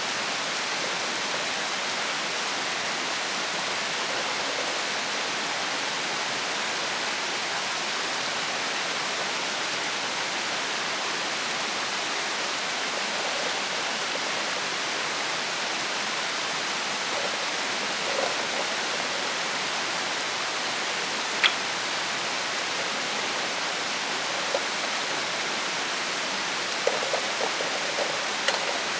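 Steady rushing hiss, water- or rain-like, throughout, with a few faint clicks and taps in the last few seconds.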